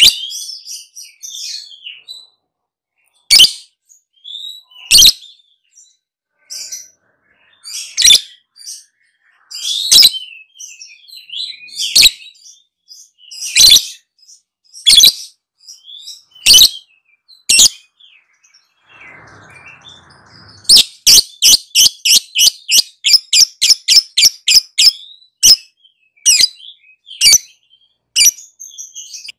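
Lovebird calling in sharp, high chirps a second or two apart. About two-thirds of the way through it breaks into a fast run of about five chirps a second, the long 'ngekek' chatter, then spaces them out again.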